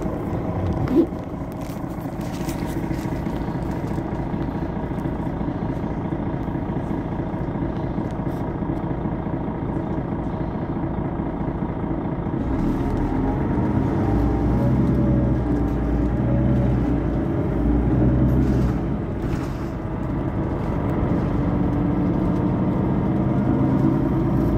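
Mercedes-Benz Citaro facelift city bus standing with its engine idling, a steady low hum. About halfway through the deep rumble grows louder and stays up. A short click about a second in.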